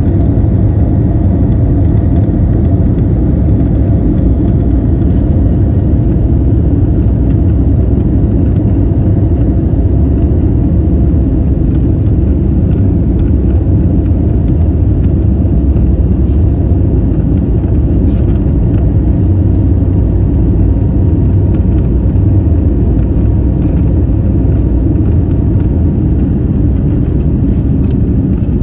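Steady low rumble of jet engines and rushing air heard inside the cabin of an Airbus A321neo in flight, with faint steady hums above it.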